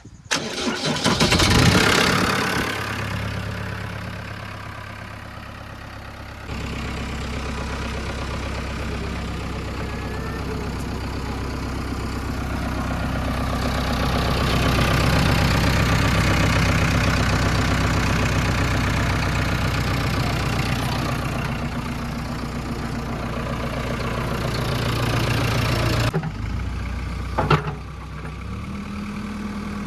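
Heavy diesel engine of earthmoving machinery running, its level swelling and easing as the load changes. It comes in abruptly at the start, and there is a single sharp knock near the end.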